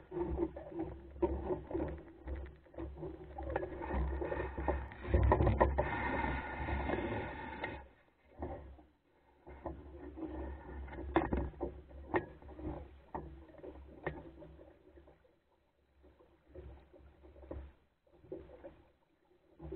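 Water washing and splashing along the hull of a small wooden sailing skiff under way, with wind buffeting the microphone and scattered knocks from the boat. Louder for the first eight seconds or so, then quieter, with separate knocks.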